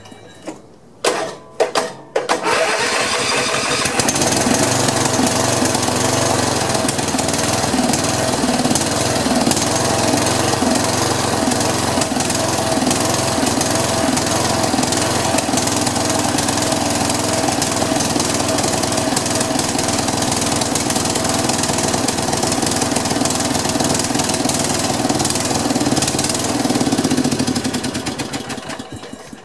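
Snapper SR1230 rear-engine rider's Briggs & Stratton engine being started: a few short bursts as it cranks, then it catches about three seconds in and runs steadily at speed. Near the end it winds down and stops as it is shut off. This is a test start on a freshly replaced flywheel key, to see whether the key shears again.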